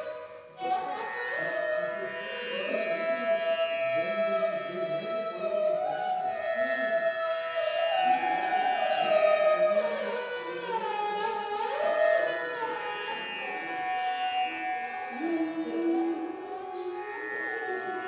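Background music: Indian classical instrumental, a melodic line of held notes that slide between pitches.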